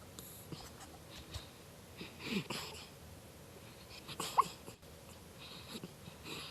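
Sleeping eight-week-old miniature schnauzer puppy making dream noises: noisy breaths, a low falling moan about two seconds in, and a short high squeak just past four seconds, the loudest sound.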